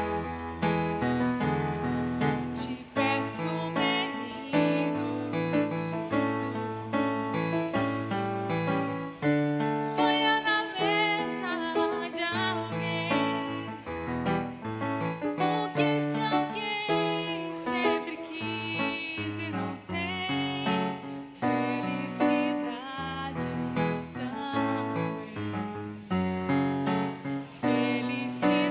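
Music led by a keyboard, playing a continuous melody with chords.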